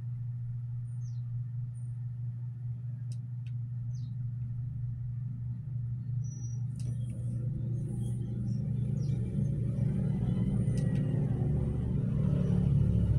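A low, steady rumble that grows louder over the last few seconds, with a few faint, short, high chirps and ticks above it.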